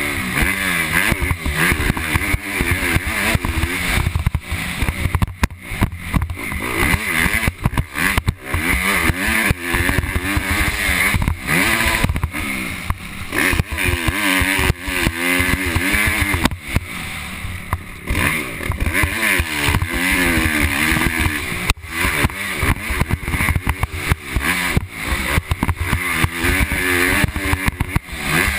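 Motocross dirt bike engine under hard riding, its pitch climbing and falling again and again with throttle and gear changes. Wind buffets the helmet-mounted camera throughout.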